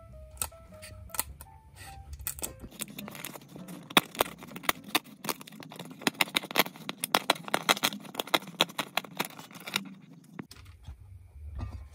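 Dry, glued fabric spider of a woofer crackling and tearing as fingers peel it away from the speaker frame: a dense run of sharp clicks and crackles from about three seconds in until shortly before the end. Background music plays at the start and again near the end.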